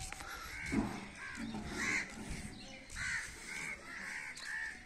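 Crows cawing over and over, short rising-and-falling caws about two a second, with a tractor engine running faintly underneath.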